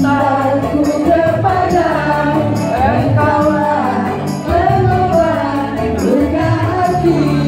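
Women singing together into handheld microphones, amplified through the room's loudspeakers, over backing music with steady bass notes and an even high percussive tick about twice a second.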